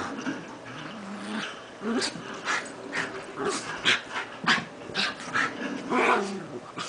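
Two Miniature Schnauzers play-wrestling, growling in a string of short growls with quick sharp sounds between them.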